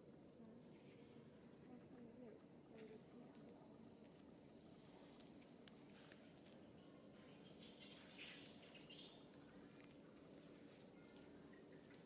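Near silence: a faint, steady, high-pitched insect trill, with a few soft rustles of leaf litter about eight seconds in.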